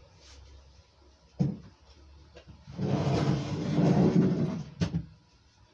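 A knock, then about two seconds of scraping as a stack of cardboard sheets on a board is slid into storage, ending with a sharp knock.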